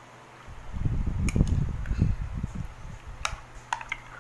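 A metal spoon stirring thick creamy fruit salad in a bowl, with a few light clicks of the spoon against the bowl. A low rumble sets in about half a second in and dies down after about two seconds.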